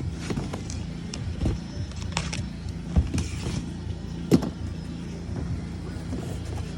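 Knocks and rustles of a welder's box and packaging being handled, the two sharpest knocks about three seconds in and a second later, over steady background music.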